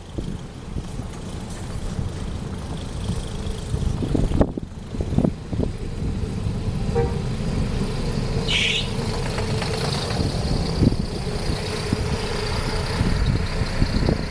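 Strong blizzard wind buffeting the microphone: a loud, uneven low rumble with a faint steady hum underneath.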